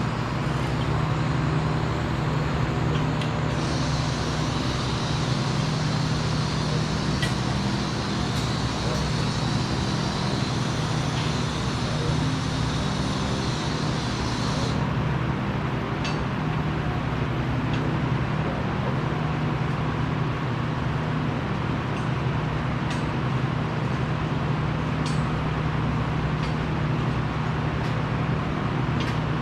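Steady hum of shop machinery such as welding power sources and ventilation, with a higher hiss that starts about three and a half seconds in and cuts off suddenly near the middle.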